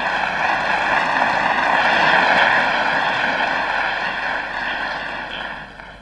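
Studio audience applauding, strongest about two seconds in and then dying away toward the end.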